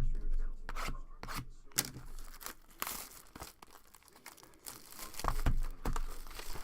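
Foil trading-card pack wrappers being torn open and crinkled, with a sharp knock at the start and scattered clicks of cards and packs being handled.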